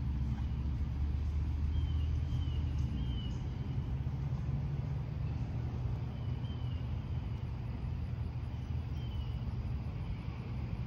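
Low, gusting wind rumble on the phone's microphone, with a few faint, short high chirps scattered through it.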